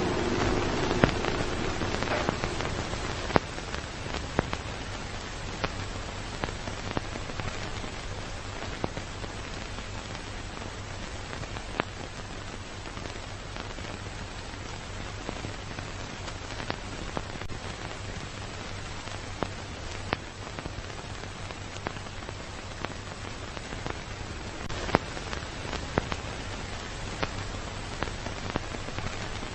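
Old-film soundtrack effect: a steady hiss full of crackle and scattered sharp pops over a low hum, like a scratched, worn film running through a projector.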